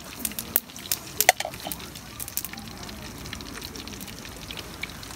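Kushikatsu deep-frying in hot oil in an aluminium mess tin: steady sizzling with sharp crackles and pops, most frequent in the first couple of seconds, then settling to an even sizzle.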